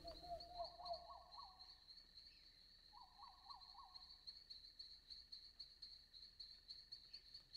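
Faint outdoor ambience: a steady, high, pulsing insect trill, with two short runs of about four quick chirps, one about half a second in and one about three seconds in.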